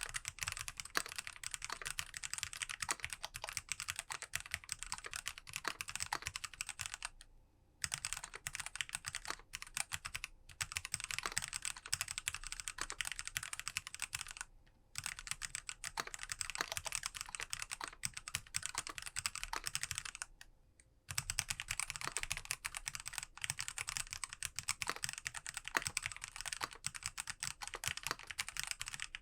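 Fast, continuous typing on a mechanical keyboard with lubed Kailh Box Black linear switches in a foam-dampened aluminium case, dense keystroke clacks with three brief pauses.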